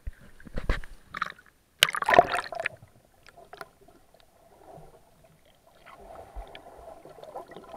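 Shallow seawater sloshing and splashing around a waterproof action camera as it goes under the surface, with the loudest burst of splashing about two seconds in, then quieter, muffled underwater gurgling.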